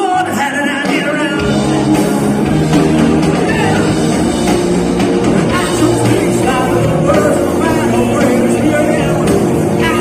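Live rock band playing, with electric guitars and singing. Bass and drums come in about a second and a half in, and the full band carries on from there.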